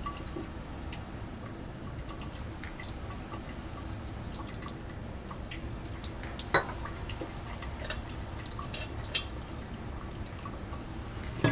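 Laboratory glassware being handled over a steady fume-hood hum: small scattered ticks and clinks, with one sharp glass clink a little past halfway and a lighter one near the end.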